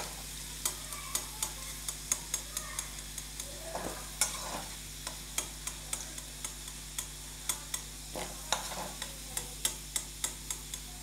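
Hot mustard oil sizzling around fried potato cubes in a metal wok, with a metal spatula clicking and scraping against the pan again and again as the potatoes are scooped out.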